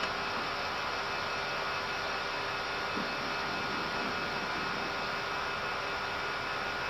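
Steady cockpit noise of an Airbus A320 in the climb: an even rush of airflow and ventilation hiss with a few thin, steady hum tones on top.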